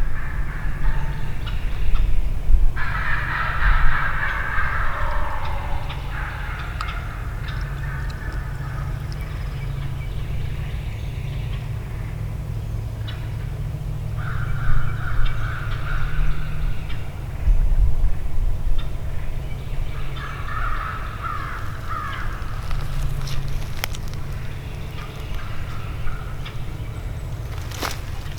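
Wild turkeys gobbling again and again, rattling calls coming every few seconds, the loudest and longest about three seconds in.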